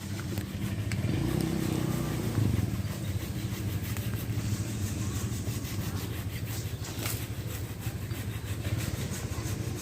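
An engine running steadily at a low pitch.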